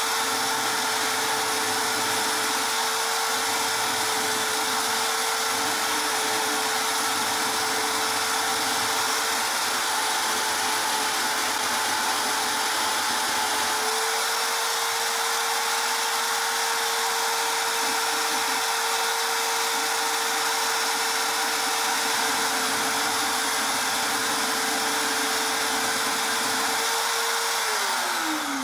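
Electric drill motor running steadily at speed with an even whine and hiss. Near the end it is switched off and the whine falls in pitch as it spins down.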